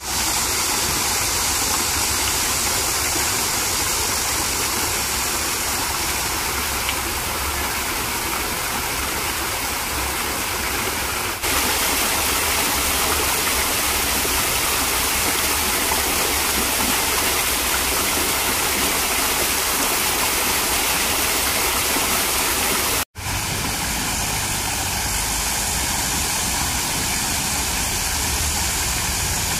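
Artificial garden waterfall splashing down a rock wall into a pond: a steady rush of falling water, cut off for an instant about two-thirds of the way through.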